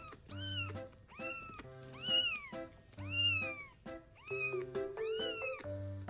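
Young kitten meowing repeatedly, about six high, rise-and-fall calls of half a second each, the hungry cries of a kitten impatient for its turn at the feeding bottle. Background music plays underneath.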